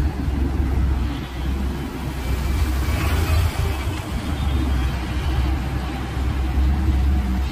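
Hyundai Smart 215L crawler excavator's diesel engine running steadily under load, a continuous low rumble.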